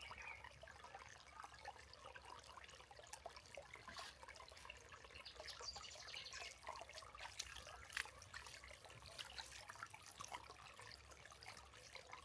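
Faint, steady trickle of a shallow seasonal river flowing, with scattered small clicks.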